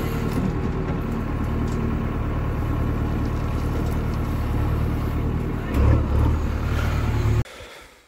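JCB 3DX backhoe loader's four-cylinder diesel engine running steadily under load while the backhoe arm is worked, heard from the operator's cab. It briefly gets louder about six seconds in, then cuts off abruptly near the end.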